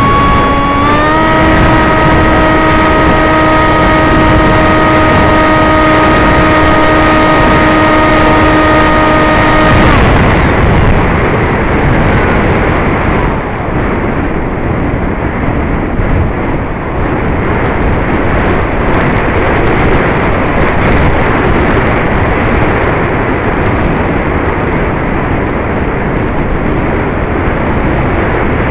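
Electric motor and propeller of a Skysurfer RC plane whining as it climbs in pitch under throttle, holding a steady pitch for about ten seconds, then cutting off abruptly. After that only rushing wind is heard on the onboard microphone as the plane glides.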